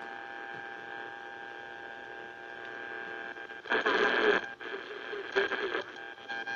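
Portable multiband radio's speaker giving out hiss and steady whistling tones as its tuning knob is turned between stations. Snatches of a station break through loudly twice, a little under four seconds in and again about a second and a half later.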